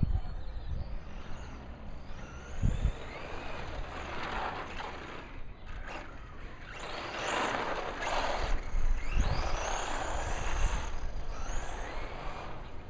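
Brushless electric RC truck with an Arrma motor being driven hard: the motor's whine rises and falls in pitch as it accelerates in repeated bursts, with tires scrubbing over the ground. A couple of thumps, about three seconds in and again around nine seconds.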